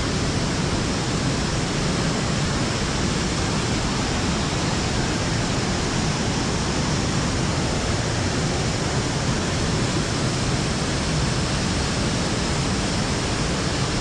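Dudhsagar Falls in heavy flow: a steady, even rush of falling water.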